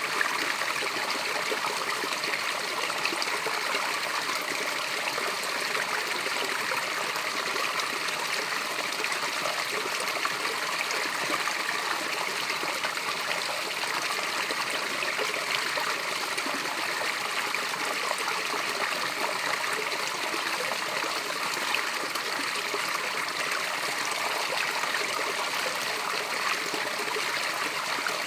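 Small waterfall running steadily: an even, unbroken rush and splash of water, mostly bright hiss with little low rumble.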